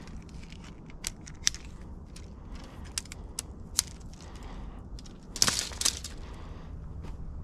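Tent pole sections being fitted together by hand: a scatter of sharp clicks, with a louder, scraping clatter about five and a half seconds in.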